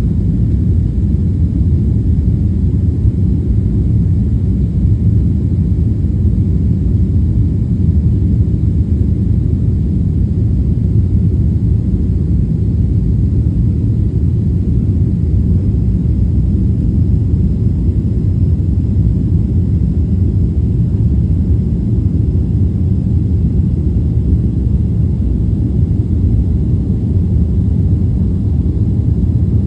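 Steady low rumble of a jet airliner heard from inside the passenger cabin: engine and air noise, unchanging throughout.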